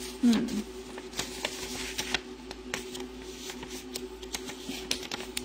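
A sheet of white paper being handled and folded: a run of light, crisp crackles and rustles. A brief, louder low sound comes just after the start, and a faint steady hum runs underneath.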